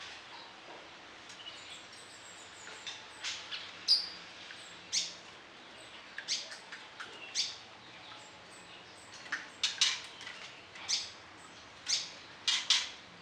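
Orange-headed thrush singing: short, sharp, high notes and brief phrases at irregular intervals, some in quick clusters, over a faint steady hiss.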